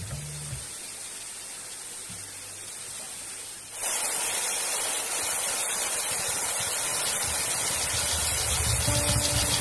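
Stream water rushing and splashing down a sloping rock slab in a small cascade: a loud, steady hiss that starts suddenly about four seconds in, after a quieter stretch. A low rumble builds under it near the end.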